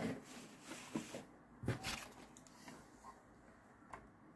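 Faint, scattered clicks and light knocks from handling fabric and sewing tools at a sewing table; there is no steady run of a machine.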